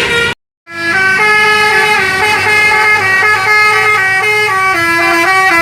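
Bus 'telolet basuri' musical horn playing a melody, several horn notes sounding together and stepping from pitch to pitch every fraction of a second, after a brief silent gap just after the start.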